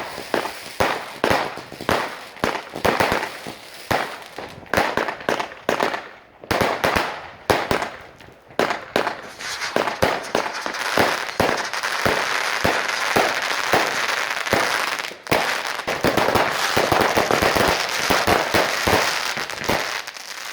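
Firecrackers and fireworks going off: a fast string of sharp bangs, a few each second, for the first half, then a dense unbroken crackle of many bangs at once from about halfway.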